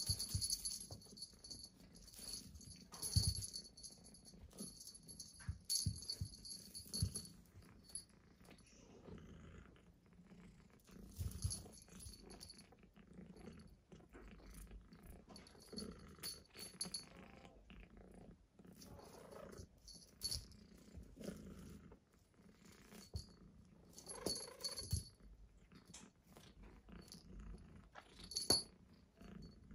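Cat wand toy rattling and rustling as a Persian kitten bats at and chews it, with scattered soft scuffs and a few sharper knocks.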